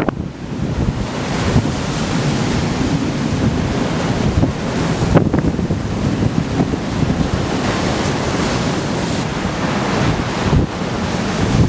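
Strong storm wind buffeting the microphone over the steady wash of heavy surf.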